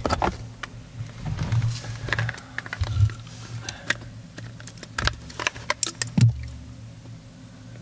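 Irregular plastic clicks, knocks and rattles as a Mercedes W204 blower motor is unclipped, twisted and pulled down out of its plastic housing, with a steady low hum underneath.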